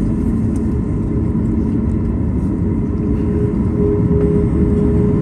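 Cabin noise inside a Boeing 737 MAX 8 rolling on the ground just after landing: a loud, steady low rumble from its CFM LEAP-1B engines and landing gear. A steady hum joins about three seconds in.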